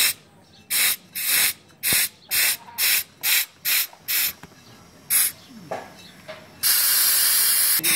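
Compressed air hissing from a pneumatic tractor tyre press as its control valve is worked: a quick run of short hisses, about two or three a second, then one more, and near the end a steady hiss of over a second while the ram is driven against the tyre bead.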